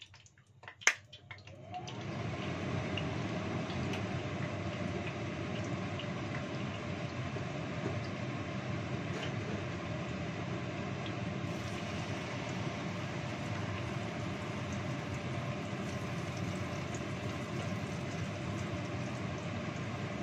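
Kitchen extractor fan switched on: a sharp click about a second in, then the fan starts up and runs with a steady, even drone for the rest of the time, a bit noisy.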